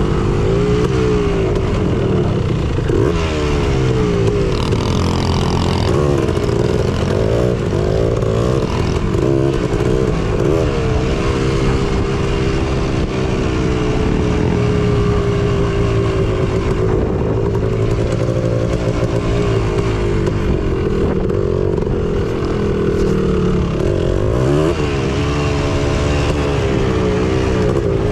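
Honda TRX250R's two-stroke single-cylinder engine running hard on a dirt trail, its pitch rising and falling as the throttle is worked on and off.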